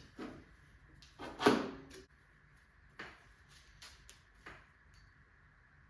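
A handful of knocks and clunks from a mountain bike suspension fork and its headset parts being fitted into the frame's head tube, the loudest about a second and a half in.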